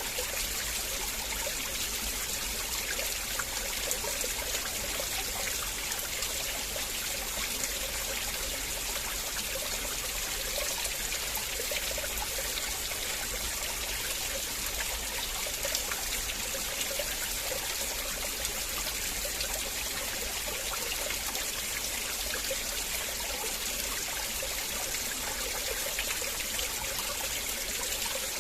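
River water flowing steadily: an even, unbroken rush of trickling, splashing water.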